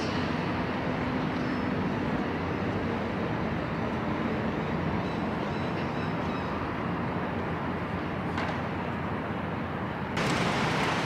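Steady city street ambience: the constant wash of traffic going by. Just after ten seconds it steps up to louder and brighter.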